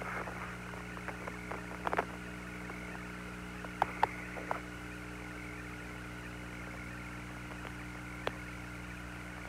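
Open Apollo 17 air-to-ground radio channel between transmissions: a steady hiss over a low hum, broken by a few short clicks, mostly in the first half.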